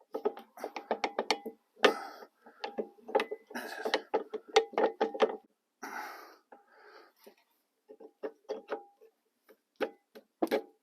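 Metal clicking and knocking as brake pads and their clips are worked into a Brembo brake caliper: a quick run of sharp clicks through the first half, then sparser taps.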